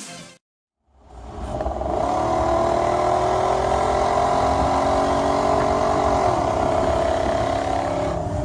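A motor vehicle's engine running, rising in pitch about two seconds in, holding, then easing back down about six seconds in. It starts after a moment of silence about a second in.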